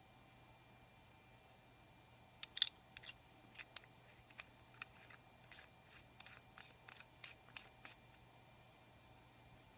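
A string of small, sharp, irregular clicks from handling the antique Elgin pocket watch, beginning a couple of seconds in and stopping near the end.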